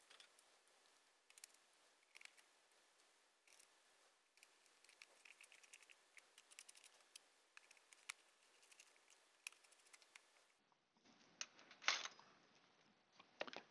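Faint scattered clicks and small taps from a Neptune Apex display module's plastic case being handled and its back screwed on during reassembly, with a louder knock about twelve seconds in.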